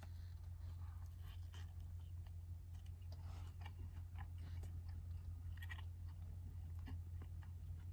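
Knife spreading mustard on bread: soft, irregular scraping and small clicks.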